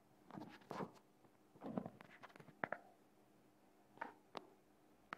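Wire whisk scraping and clicking against the bowl as it beats rice-flour batter, faint, in three short spells of strokes.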